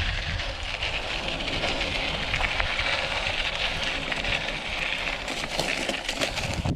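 Mountain bike riding fast on a dirt and gravel trail: a steady rush of tyre noise and wind, with many small ticks and rattles from stones and the bike.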